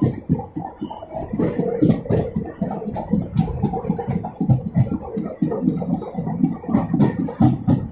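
Train running on its rails, heard from inside the carriage: a steady rumble broken by quick, uneven low thumps of the wheels and bogies.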